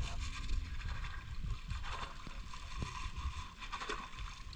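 Water lapping and gurgling against a small wooden boat, with wind rumbling on the microphone and a few light knocks against the hull, a sharp one at the start.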